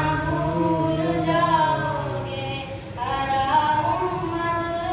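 A boy singing a devotional naat, with long held notes that waver and slide in pitch. There is a brief break about three seconds in before the next phrase.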